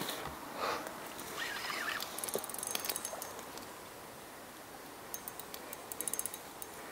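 Spinning reel clicking in two short rapid runs while the rod is bent into a hooked wels catfish, over a steady low hiss, with some rustling in the first couple of seconds.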